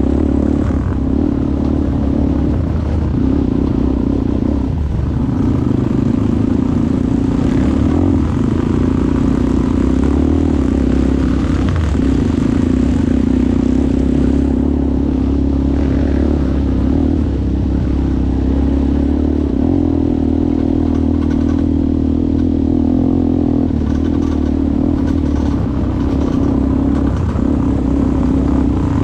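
ATV engine running steadily under way, with brief dips in the engine note every few seconds.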